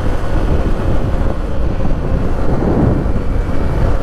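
Wind buffeting the microphone over the steady running of a Yamaha WR155R's single-cylinder engine, ridden along at road speed.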